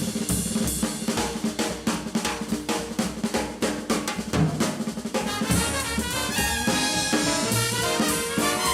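Jazz drum kit solo, with fast snare strokes, rimshots and bass drum hits. About five seconds in the band comes back in with sustained brass chords over the drums.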